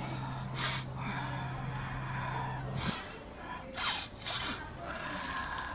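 A man smoking a cigarette, with a few short, sharp breaths as he draws on it and blows out smoke, over a low steady hum that stops about halfway through.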